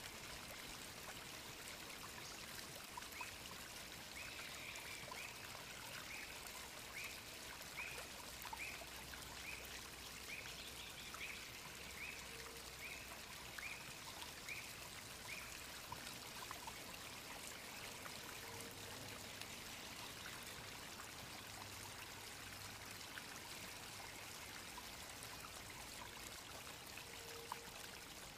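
Grey-headed kite calling: a series of about fifteen short, evenly spaced notes, a little over one a second, lasting about twelve seconds, over a steady rushing hiss.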